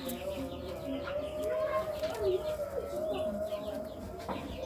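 Pigeons cooing in short repeated low calls as part of courtship, with higher bird chirps scattered through and a steady wavering hum underneath.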